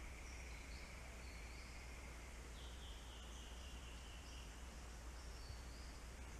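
Faint rainforest ambience: a steady hiss and low rumble with thin, high trilling animal calls, one trill in the first couple of seconds and a higher call from about two and a half to four and a half seconds in. No knock stands out.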